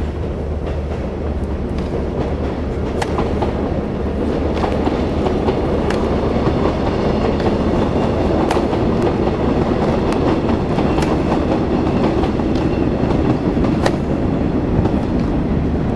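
Tennis racket strikes on the ball: sharp pops every second or two over a loud, steady rumble that slowly grows louder.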